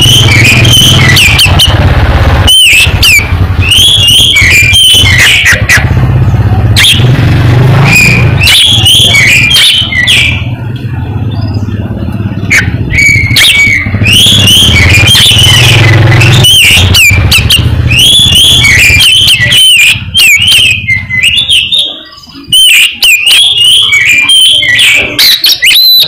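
Oriental magpie-robin (kacer) singing loudly and continuously in quick, varied whistled phrases. An engine runs underneath as a low rumble and drops away about twenty seconds in.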